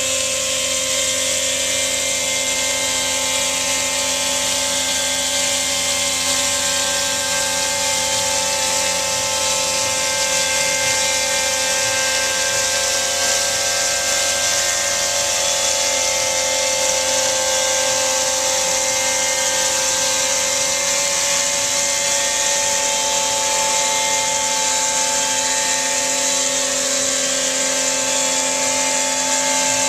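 CNC stone router spindle driving a diamond bullnose profiling wheel (position three of a demi bullnose) along the edge of a 3 cm stone countertop under water spray. It makes a steady whine with several held tones over a constant hiss of grinding and spray, running evenly without a change in pitch.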